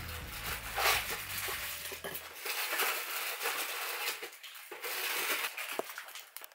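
Close crunching and rustling noises near the microphone, in several louder bursts. A low hum underneath stops about two seconds in.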